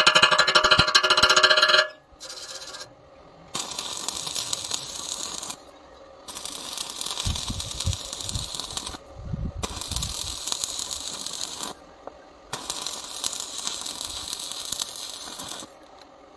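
Electric arc welding on steel rebar: the arc crackles and sizzles in runs of two to three seconds, stopping and restarting four times. It opens with a louder buzzing sound with a steady pitch that cuts off about two seconds in, and there are a few low thumps near the middle.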